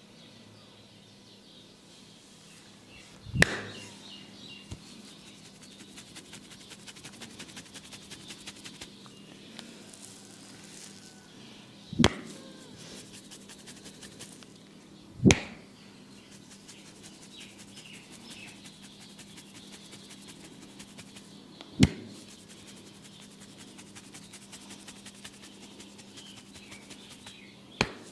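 Hands massaging a head: fast light tapping and rubbing, several small ticks a second, broken five times by a single loud sharp smack.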